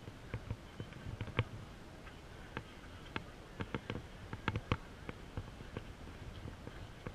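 Irregular light clicks and taps over a low, muffled rumble: handling noise from a handheld camera being carried around, a few clicks louder than the rest.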